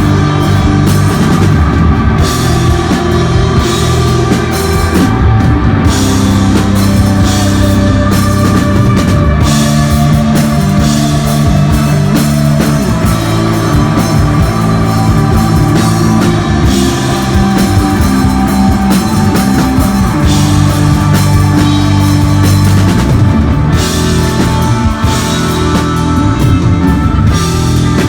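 Desert rock band playing live, loud and steady: electric guitar over a driving drum kit.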